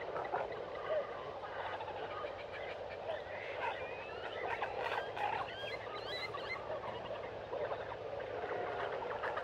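Meerkats chattering: many short overlapping chirps and peeps, with higher sliding whistles about three to six seconds in.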